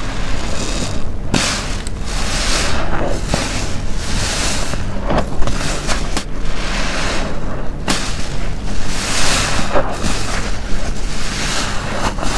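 A car wash sponge soaked with detergent, squeezed over and over close to the microphone: wet squelching with soapy water forced out, about eight squeezes with short pauses between them.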